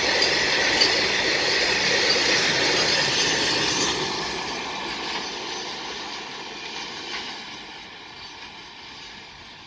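BOBRN hopper wagons of a freight train rolling past, their steel wheels running on the rails in a steady rush, fading away after the brake van passes about four seconds in.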